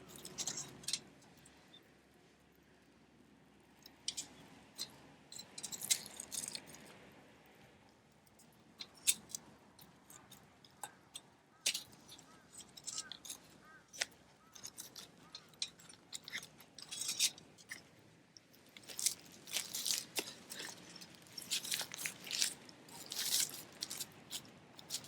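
Dry firewood crackling and snapping in irregular sharp clicks, busier toward the end.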